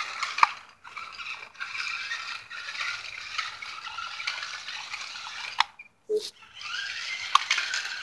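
A toy remote-control stunt car's small electric motors and plastic gearboxes whirring and rattling as it drives. The sound cuts out briefly twice, about a second in and again near six seconds.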